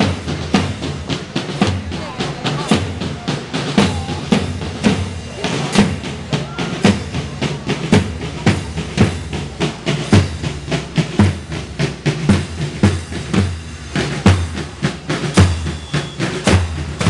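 Marching band's bass drums and snare drums playing a steady march beat: a deep bass-drum stroke about once a second, with snare strokes and rolls between.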